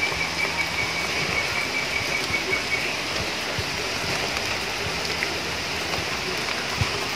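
Steady rain falling, with scattered drops tapping close by. A faint high pulsing trill is heard over it for the first few seconds.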